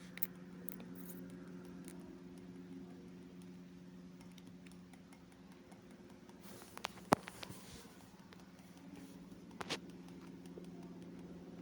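A few small sharp clicks over a faint, steady low hum, the loudest click a little after seven seconds in.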